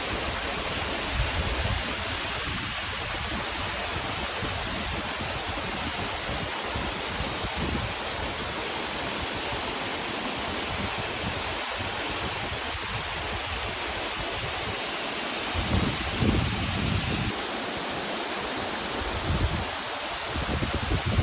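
Waterfall: a steady rush of falling water. Wind buffets the microphone in low thumps about two-thirds of the way in and again near the end.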